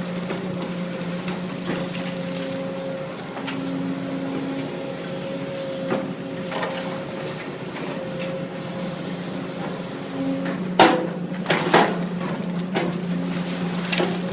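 A machine's engine running steadily, with several sharp knocks or impacts late on, the loudest about eleven seconds in.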